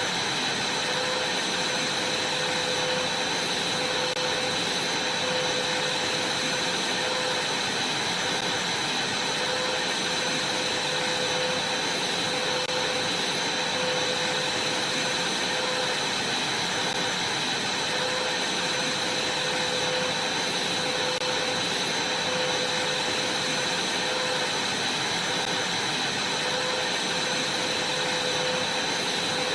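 Vacuum cleaner running steadily: a constant rushing noise with a steady high whine and a lower hum, unchanging throughout.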